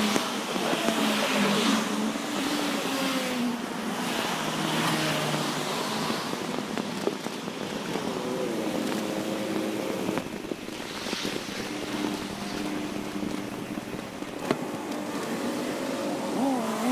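Busy road traffic alongside the pavement: cars, vans and a bus idling and moving in a queue, with engine tones wavering and gliding. The sound is sped up four times, so the engines are raised in pitch and quickly changing.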